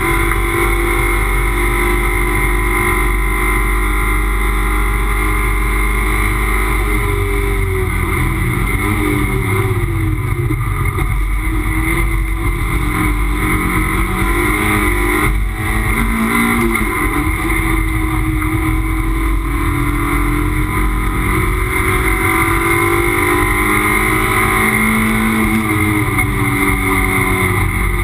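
Toyota MR2 race car's mid-mounted engine heard from inside the cabin, driven hard on track. The engine note rises and falls repeatedly with throttle and gear changes, with a brief dip about halfway through.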